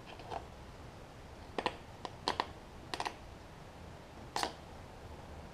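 A handful of short, light clicks and taps, some in quick pairs, from long metal bolts being drawn out of a plastic air filter housing by hand.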